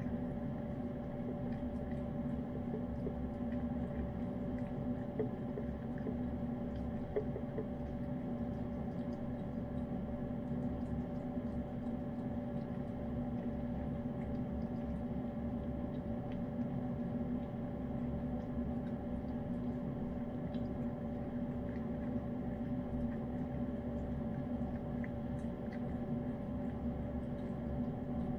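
Steady electric motor hum with several fixed tones, unchanging throughout, with faint scattered wet clicks from a cat licking and chewing flaked wet cat food.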